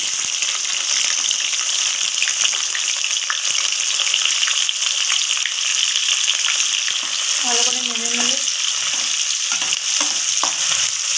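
Hot mustard oil sizzling, starting suddenly as sliced onions go into it in a kadai, and frying steadily. A spatula stirs them, with small scraping clicks against the pan.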